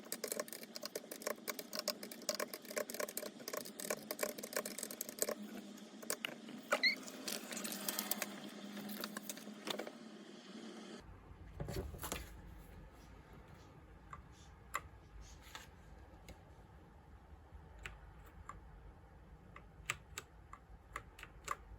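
Clicks and taps from a computer keyboard being handled and its keys pressed: a dense run of clicking for about the first half, then, after an abrupt change about halfway where a low hum comes in, scattered single clicks.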